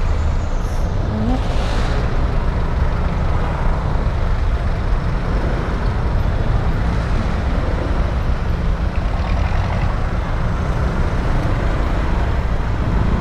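Steady road-traffic noise with the low rumble of a Honda ADV scooter's engine as it creeps through congested city traffic.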